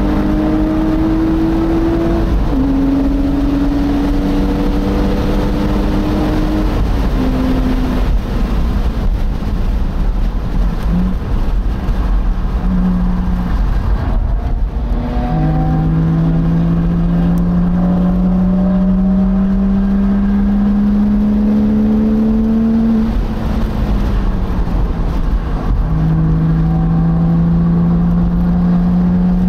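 Porsche Boxster engine pulling hard through the gears. Its pitch climbs in each gear and drops sharply at the upshifts, with a long pull in the second half and a falling lift-off before the last climb. Heavy wind rumble from the open cockpit runs underneath.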